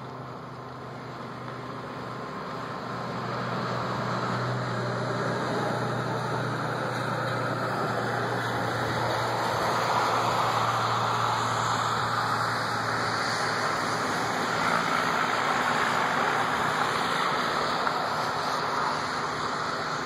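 Tractor-trailer tanker truck driving past close by: diesel engine hum and tyre noise growing louder, peaking about halfway through, then fading.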